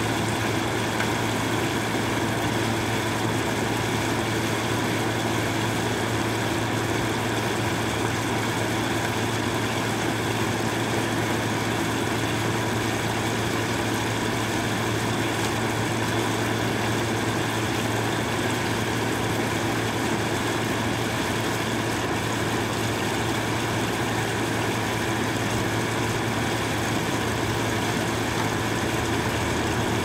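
Air conditioner running: a steady, unchanging mechanical hum.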